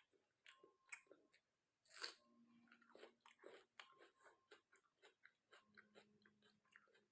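Faint, close-up mouth sounds of a person chewing and biting chicken and rice, with many small wet clicks and crunches. The sharpest crunch comes about two seconds in.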